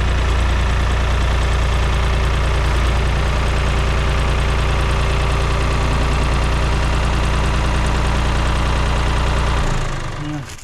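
Farm tractor engine running at a steady speed, then shut off near the end, winding down and stopping.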